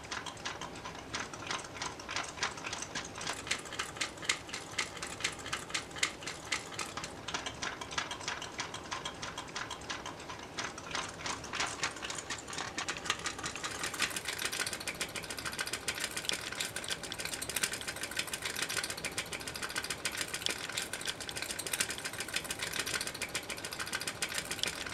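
Homemade electromagnetic single-piston engine running: its coil-driven piston and flywheel clatter in a rapid, even run of clicks. The clicking gets faster and louder about halfway through.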